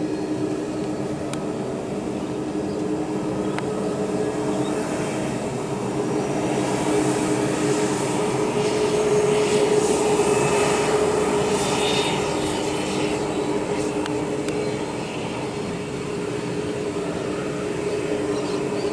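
Airbus A318's Pratt & Whitney PW6000 jet engines running with a steady low whine under a roar. The sound swells to its loudest about halfway through, then eases off.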